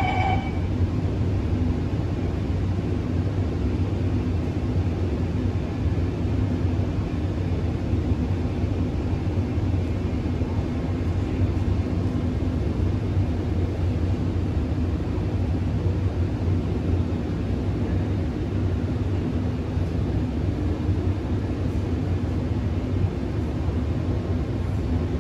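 Steady low rumble and hum of an Alstom Movia R151 metro car's cabin noise, even and unbroken. The last of a chime fades out in the first half-second.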